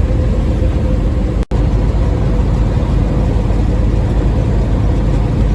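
Semi truck engine and road noise heard from inside the cab while driving: a steady low rumble with a faint constant hum. The sound cuts out for an instant about a second and a half in.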